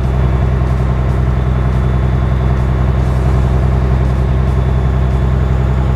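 Vehicle engine running at a steady speed with a low, even hum, as the car is held at a chosen speed while the speed limiter is calibrated.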